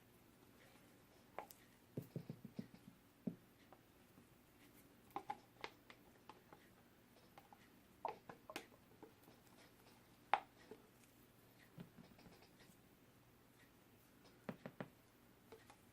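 Scattered light clicks and taps of small objects handled on a work table, in short clusters, with the sharpest single click about ten seconds in.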